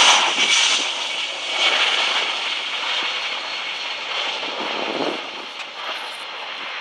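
The four turbofan engines of a Boeing C-17 Globemaster III running at takeoff power during its takeoff roll. The jet noise is loud at first and fades steadily as the aircraft accelerates away down the runway.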